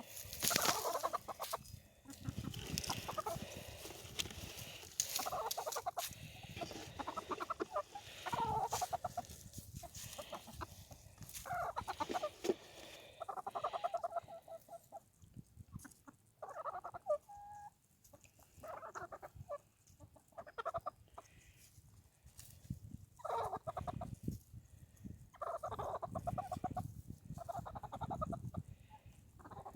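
Chickens clucking and calling in many short repeated bouts, with scratchy rustling noises mostly in the first half.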